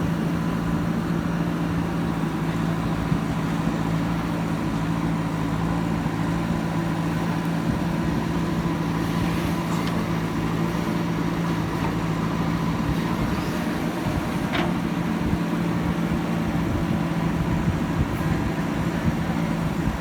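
Heavy-equipment diesel engine running steadily at a constant speed, with a low, even hum.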